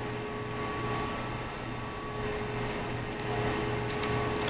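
A steady machine hum with a held tone and a low throb pulsing about twice a second, with a few faint light clicks from small parts being handled.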